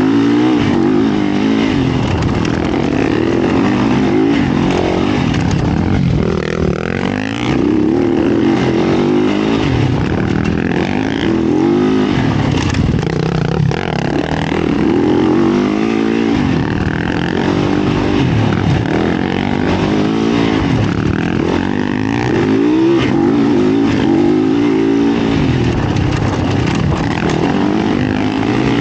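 Yamaha YZ450F's 450 cc single-cylinder four-stroke engine being ridden hard, revving up and falling back again and again as the throttle is opened and shut, its pitch rising and dropping every few seconds.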